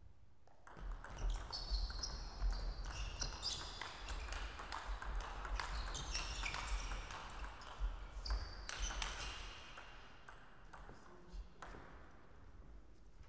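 Table tennis rally: the ball clicking off bats and the table in quick exchanges, with shoes squeaking on the court floor and thuds of footwork. It starts about a second in and dies away after about ten seconds.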